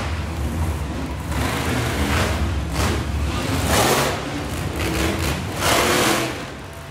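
Monster truck engines running with a steady low rumble, revving hard in several loud throttle bursts, the loudest about four and six seconds in.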